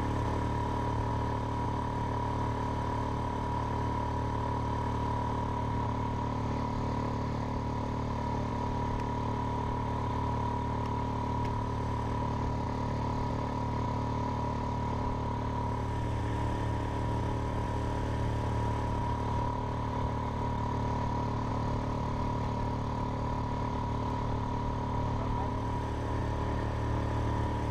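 Small outboard motor running steadily at cruising speed, driving an inflatable boat, its pitch holding even throughout.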